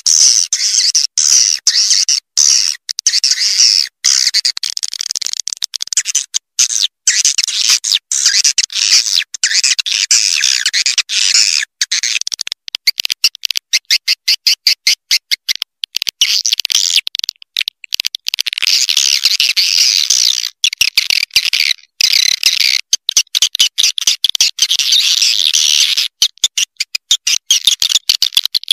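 Recorded swiftlet call sound: dense, rapid high-pitched chirping and twittering of swiftlets, chopped by many brief gaps and with no bass. It is a lure call played to attract swiftlets to a nesting house.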